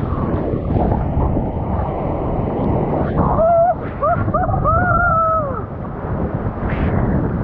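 Breaking surf rushing and churning around a sea kayak as the wave carries it sideways. From about three seconds in, a person whoops several times, the last whoop held longest and falling away.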